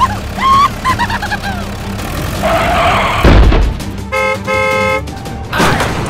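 A car horn honking twice, a short blast then a longer one, after a whooshing rush that ends in a low thud; squeaky chirping sounds come before it.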